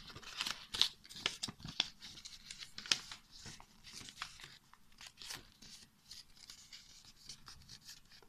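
A square of paper being folded and creased by hand: irregular crinkles and rustles, busiest in the first few seconds and thinning out toward the end.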